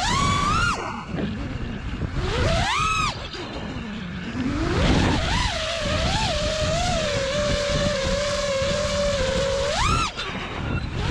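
FPV quadcopter's brushless motors and propellers whining, recorded from the drone itself: the pitch surges up sharply with throttle punches about half a second in, around three seconds and again near the end, and holds a steadier, lower whine with small wobbles in between. A low rush of wind on the onboard microphone runs underneath.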